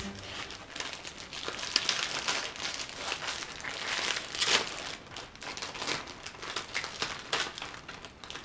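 A plastic biscuit wrapper being pulled open and handled, crinkling in irregular rustles and crackles, loudest about four and a half seconds in.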